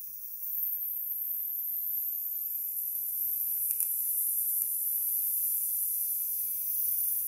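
TIG welding arc on stainless steel, a steady high hiss with two faint ticks in the middle. It stops near the end.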